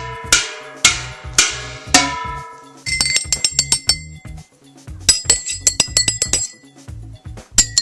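Four struck notes, each ringing and fading, about half a second apart. Then two quick runs of sharp, high-pitched clinks tapped out like a rhythm.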